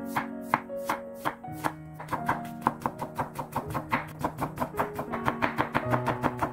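Kitchen knife cutting zucchini into thin slices and matchsticks on a wooden cutting board: crisp chopping knocks of the blade against the board, slower at first, then quickening to about four a second from about two seconds in.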